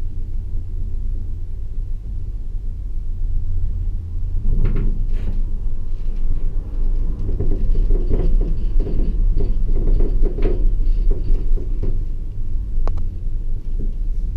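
Eight-seat Leitner detachable gondola cabin riding up the haul rope with a steady low rumble. From about four seconds in comes a run of rapid rattling knocks as the cabin's grip rolls over a tower's sheave assembly, easing off near the end with one sharp click.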